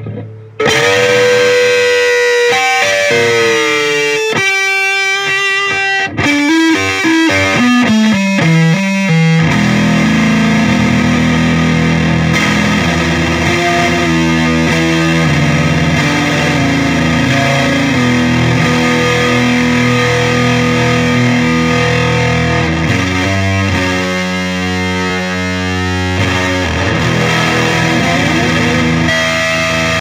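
Electric guitar played through an EarthQuaker Devices Acapulco Gold fuzz/distortion pedal. For the first nine seconds or so it plays single notes that bend and slide, then it moves into thick, low chord riffing for the rest.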